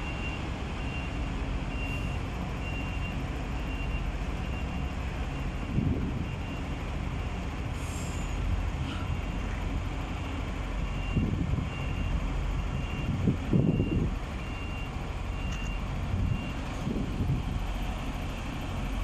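MAN heavy truck's diesel engine running under a steady, repeating reversing-alarm beep as the tractor-trailer backs up. The beeping pauses briefly and stops a couple of seconds before the end, and the engine gives a few louder low rumbles along the way.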